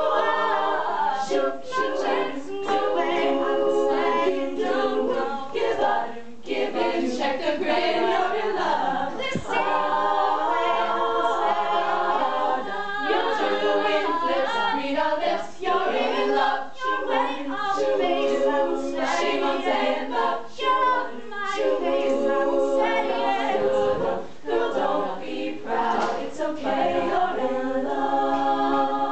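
All-female a cappella group singing, a soloist over the others' voiced backing harmonies, with no instruments.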